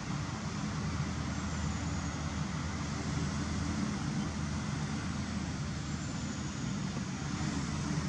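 Steady outdoor background rumble and hiss, with no distinct events standing out.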